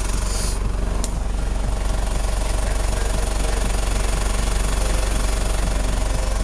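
A motor vehicle's engine running steadily at constant speed, an even drone with no breaks.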